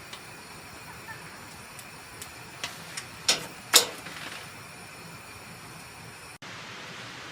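Wood fire crackling over a steady hiss, with a few sharp pops between about two and a half and four seconds in, the loudest near four seconds.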